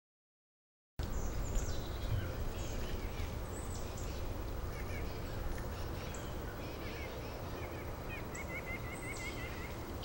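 After a second of silence, outdoor field sound cuts in: a steady low rumble with wild birds chirping and calling, and near the end a quick run of repeated notes.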